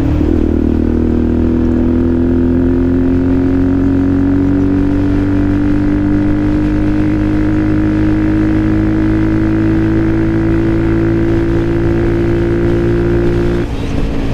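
Benelli TNT125 motorcycle's 125 cc single-cylinder engine running under way, its pitch climbing slowly and evenly for most of the time as the bike gains speed, then falling away near the end.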